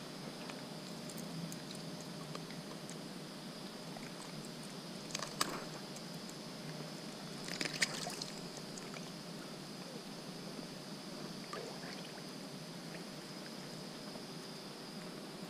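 Shallow water lapping and sloshing around a wading angler, with short splashes about five and eight seconds in as a caught whiting is handled at the surface.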